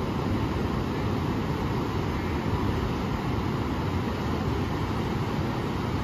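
Steady rush of Pacific surf breaking along the beach, a continuous noise heaviest in the low end with no single wave standing out.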